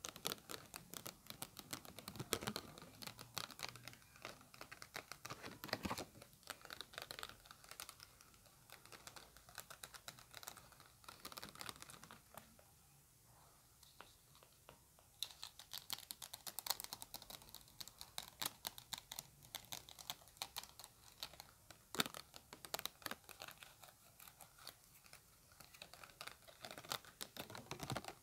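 Fast tapping of long fingernails on thin clear plastic makeup stencils: a dense run of light, quick clicks with some crinkling of the plastic, easing off for a few seconds midway.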